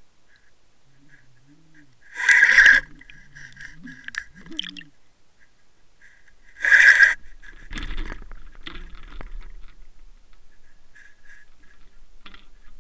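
Muffled water and housing noise picked up by a Waterwolf underwater camera towed on a fishing line: two loud, short bursts about four seconds apart, with faint knocks and a thin steady whine coming and going in between.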